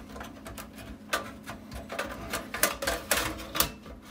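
Irregular clicks and knocks of sheet metal and plastic as a floppy drive is worked and slid out of an IBM PS/2 Model 25's chassis, with the sharpest knocks in the second half.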